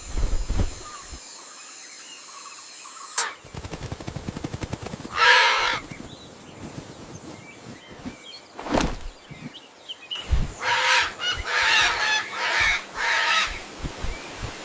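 Bird calls: one call about five seconds in, then a run of four or five calls near the end. A quick fluttering patter comes before the first call, and a sharp thump falls between them.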